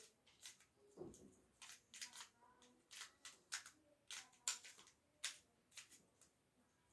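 Faint, irregular plastic clicks and snaps, about two a second, as the pieces of a triangle pyraminx twisty puzzle are turned by hand during a solve.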